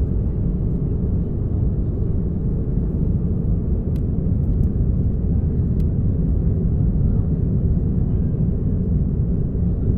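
Airplane engines rumbling steadily in a take-off recording, a deep even noise with no change in pitch, with a few faint clicks.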